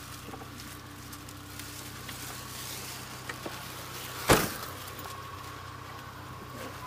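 Parked car's engine idling with a steady low hum, and one loud car-door thump a little past four seconds in.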